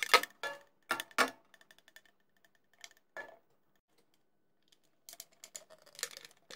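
Handling noises from a small engine's plastic fuel tank and its new fuel line with an in-line filter: a few sharp clicks and taps in the first second and a half, scattered faint ticks, then a spell of rubbing and scraping near the end as the tank is turned in the hands.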